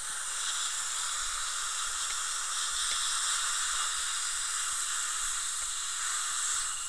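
Steady hiss of a dental rinse: the air-water syringe spraying the tooth while the suction draws off the water, a little stronger from about half a second in until near the end.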